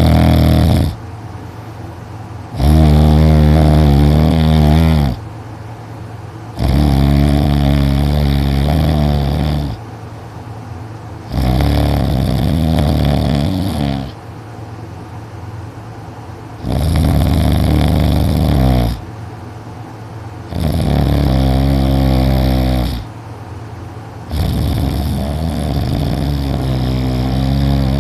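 A teenager snoring really loud in his sleep: a long heavy snore of about two seconds roughly every four seconds, six in a row, with quieter breathing between them.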